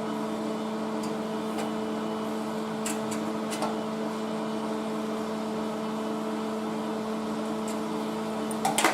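Steady machine hum at one constant pitch, with a few faint clicks and a short cluster of sharper knocks near the end.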